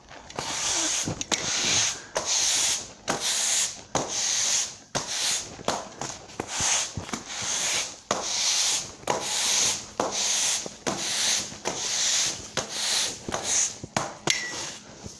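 A broom sweeping a concrete floor: repeated scratchy strokes at about one a second.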